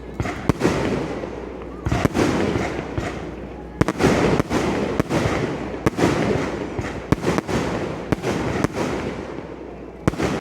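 Aerial fireworks shells bursting in quick succession, a sharp bang every second or two, each trailing off in a rumbling, crackling echo.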